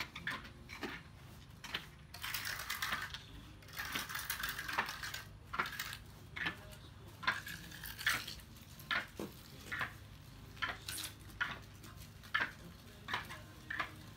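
Hand trowel scraping wet white plaster onto a pool's concrete wall: a run of short scraping strokes, longer and closer together a few seconds in, then about one a second.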